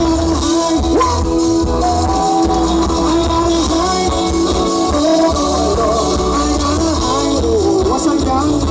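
Live band music played loud through a PA: a male lead vocal singing over drum kit, bass, keyboards and electric guitar.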